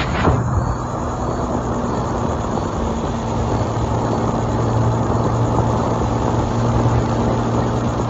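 Motorcycle ridden at around 100 km/h: wind rushing over the phone's microphone, with the engine's steady hum underneath. There is a brief knock right at the start.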